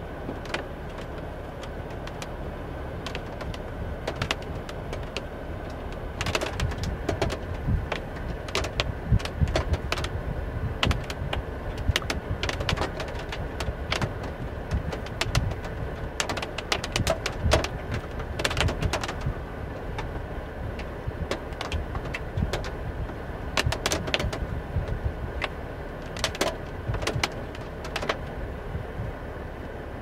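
Large raindrops hitting the car's windshield and body in scattered, irregular taps, heard from inside the cabin over a gusty low rumble of storm wind around the vehicle.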